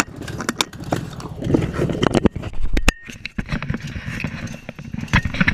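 Nissan CA18DET turbocharged twin-cam inline-four idling just after a cold start, with irregular clicks and knocks over the engine sound and two sharp knocks a little past two seconds in.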